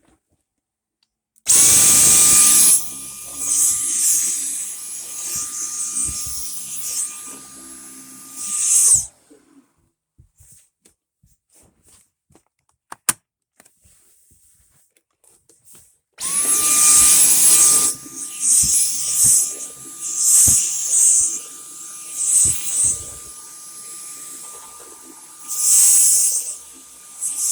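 Dyson V10 cordless stick vacuum switched on twice. Each time its motor spins up quickly to a steady high whine, and the airflow noise rises and falls as it is worked. The first run stops after about seven seconds; after a quiet pause with a single click, it starts again and runs on.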